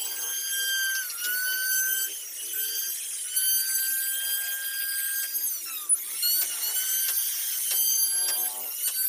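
Electric plunge router running at full speed and cutting a wood carving, a high whine whose pitch sags and recovers as the bit bites into the wood, most clearly about a second in and near the six-second mark.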